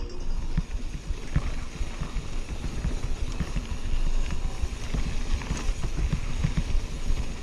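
Mountain bike rolling fast over a rough dirt track: a steady rumble of tyres and wind on the camera's microphone, with frequent small knocks and rattles as the bike goes over bumps.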